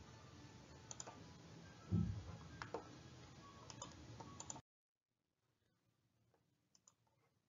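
A few faint, sharp clicks and one low thump about two seconds in, over a steady microphone hiss that cuts off abruptly a little past the middle, leaving near silence with a couple of faint ticks.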